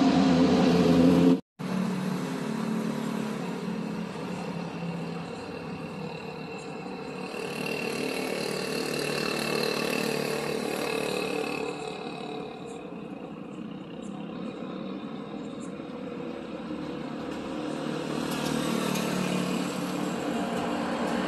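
A Boeing 777's jet noise, loud on its low landing approach overhead, cuts off abruptly about a second and a half in. Then a steady rush of road traffic, cars and motorbikes passing, rising and falling in level.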